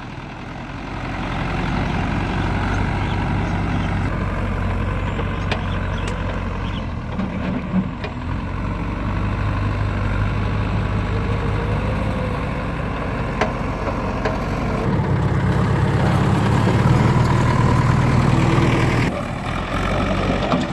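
Heavy diesel engine running at a steady idle, then working harder and louder for about four seconds in the second half before settling back, with a few sharp knocks of machinery in between.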